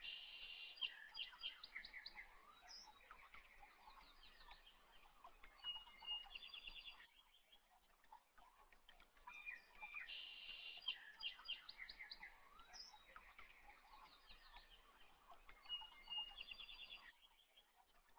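Faint birdsong of chirps and quick trills, in a pattern that repeats about every ten seconds like a looped background track.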